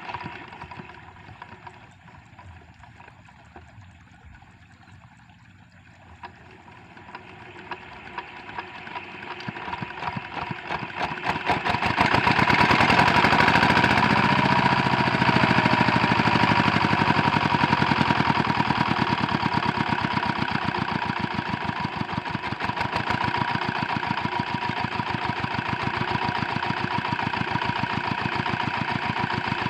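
Single-cylinder diesel engine of a rice-field hand tractor being hand-cranked. The beats speed up and grow louder, then the engine catches about twelve seconds in and keeps running steadily.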